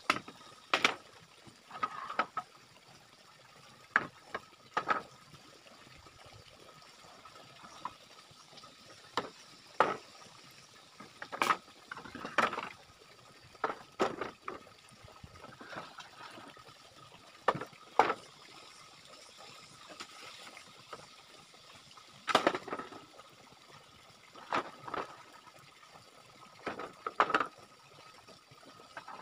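Hollow bamboo poles knocking and clacking against each other as they are handled and laid across a bamboo frame: irregular sharp knocks, some in quick clusters, with pauses between. A faint steady high-pitched hum runs underneath.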